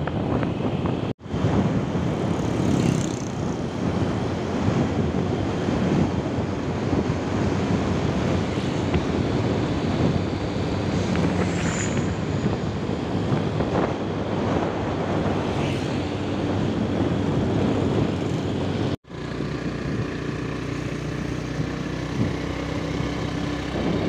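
Motor vehicle engine running at road speed, with wind rushing over the microphone as it travels. The steady drone drops out for an instant twice.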